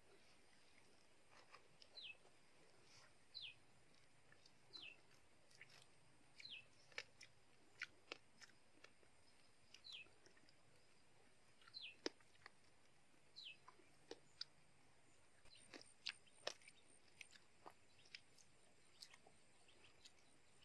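Sharp little clicks and crackles of a small yellow fruit's rind being cracked and peeled by hand, over a bird repeating a short high falling whistle every second and a half or so, about seven times, which stops about two-thirds of the way through.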